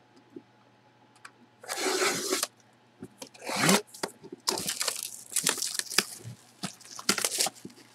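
Cardboard box being slit open along its tape with a cutter, one scraping burst about two seconds in. Then plastic wrapping around a framed jersey is pulled and crinkled in irregular crackling bursts.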